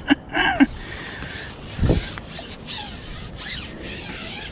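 A run of rubbing, scraping strokes, about half a second each, with a dull thump about two seconds in.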